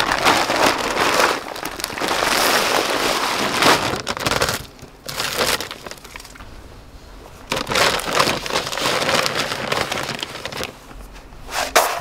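A plastic feed bag rustling, crinkling and crunching as it is handled and horse feed is scooped from it, in two long bouts with a quieter stretch between. A couple of sharp knocks near the end.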